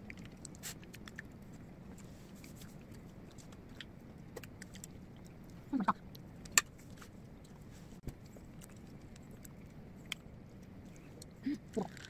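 Faint room tone with scattered light clicks of a metal fork against a ceramic cake plate, one sharper clink about halfway through. Two brief voice sounds, one just before that clink and one near the end.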